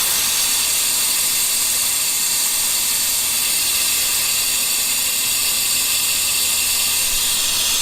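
Compressed shop air hissing steadily through a Snap-on SVTSRAD727A vacuum coolant filler as it pulls a vacuum on the engine's cooling system, drawing the air out before the coolant is filled.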